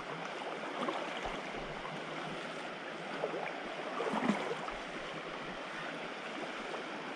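Trout stream flowing over rocks: a steady rush of moving water.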